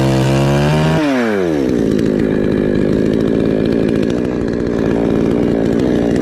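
Two-stroke chainsaw running at high revs. About a second in the engine note drops steeply and it runs on at a lower, rougher, steady pitch.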